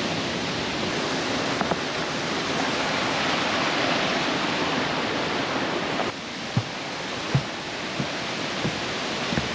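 Mountain river rushing over rocks in a ravine, a steady full-range wash of water. About six seconds in it drops a little and regular soft low thumps begin, about one every 0.7 s, like footsteps on the trail.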